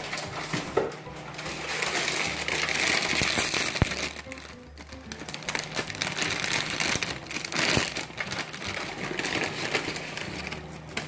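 Crinkling and rustling of a plastic bag of tortilla chips being handled, with a dense crackle in two longer stretches.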